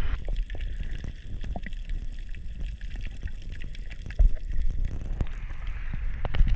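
Muffled underwater sound from a camera held below the surface: a low rumble of moving water with many small clicks and pops.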